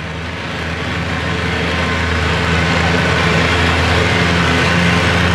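Antique Oliver pulling tractor's engine running, growing louder over the first couple of seconds and then holding steady as it takes up the load under the green flag.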